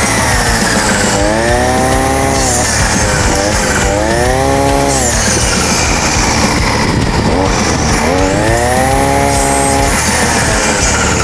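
Two-stroke Bosco brush cutter fitted with a metal cutting blade, its engine revved up to full throttle and eased back about three times while cutting into a tree branch.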